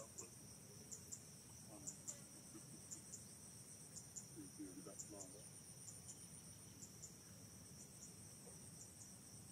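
Faint, steady high-pitched insect chorus, pulsing with paired clicks about once a second.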